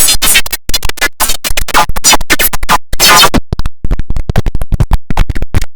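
Heavily edited audio chopped into rapid stuttering fragments that cut in and out many times a second, sounding like record scratching.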